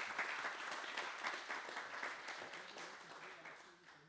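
Audience applauding, a dense patter of hand claps that fades away near the end.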